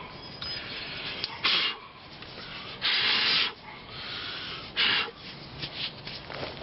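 Rubbing and scraping noises as dirt is cleaned out of the rear coil spring pocket, with three louder scratchy strokes about 1.5, 3 and 5 seconds in.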